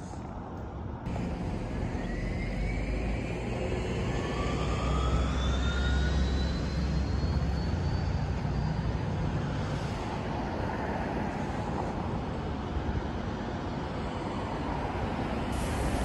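A passing vehicle: a low rumble that swells and fades over several seconds, with a whine rising steadily in pitch.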